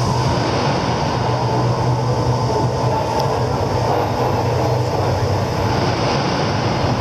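Steady, dense rumbling drone with a few held low tones underneath, like an ambient soundscape.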